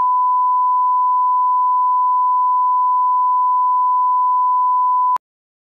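Steady 1 kHz sine test tone, the reference tone that goes with colour bars, held at one pitch and cutting off abruptly with a click near the end.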